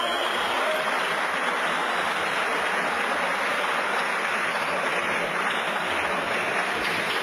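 Crowd applauding, a steady even patter of clapping.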